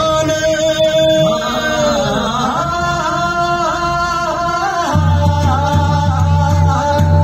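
Recorded Marathi song played over stage loudspeakers, with long held, wavering sung or melodic notes. About five seconds in, a deep steady bass note comes in under the melody.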